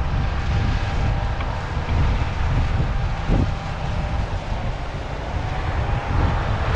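Heavy farm machinery running steadily, its low engine rumble buffeted by wind noise on the microphone.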